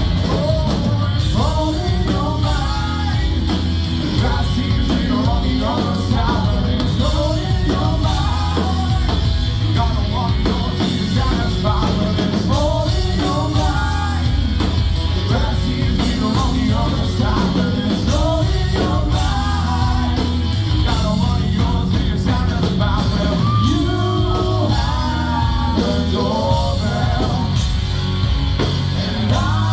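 Rock band playing a song live, with singing over a loud, steady band mix that is heavy in the bass.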